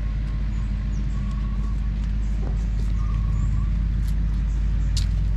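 Steady low outdoor rumble of background noise, with a sharp tick about five seconds in.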